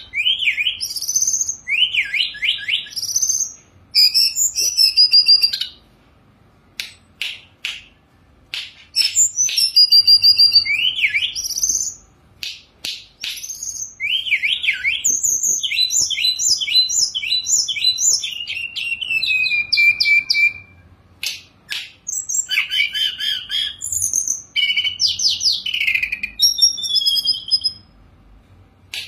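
Hill blue flycatcher singing in bursts of varied, fast whistled and trilled phrases from a rich repertoire, including a run of quick repeated notes and a long falling whistle in the middle, with short pauses between bursts. A few sharp clicks fall in the pauses.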